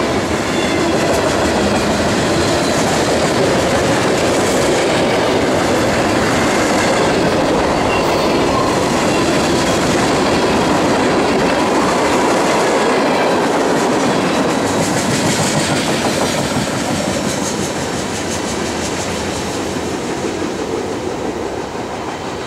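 Freight train cars (tank cars, covered hoppers, gondolas, boxcars) rolling past close by, a steady din of steel wheels on the rails. It grows quieter over the last several seconds as the end of the train passes and moves away.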